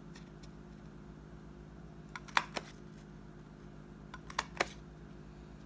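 Handheld single-hole punch clicking through paper twice, about two seconds in and again about two seconds later, each punch a quick group of two or three sharp clicks.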